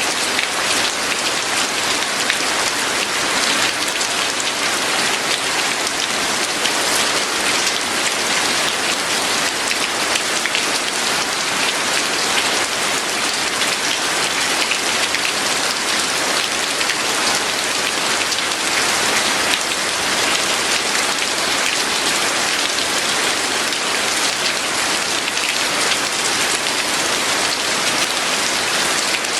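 Steady rain falling, a dense even patter of drops on a surface without a break.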